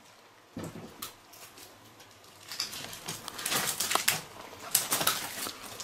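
Irregular clicks and clattering crackles of driftwood and plastic debris being disturbed, sparse at first and thickening from about halfway on.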